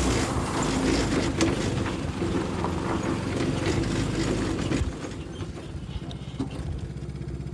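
Go-kart's small engine running while driving, with scattered knocks and rattles. About five seconds in it drops to a quieter, steady idle.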